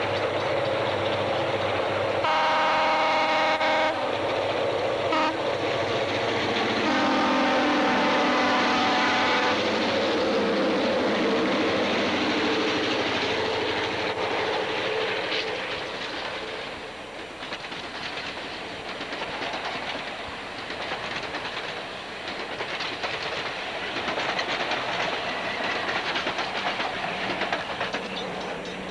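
Rio Grande EMD F9A diesel locomotive sounding two long horn blasts over its engine rumble as it approaches. Then its passenger cars roll past close by, wheels clattering over the rail joints.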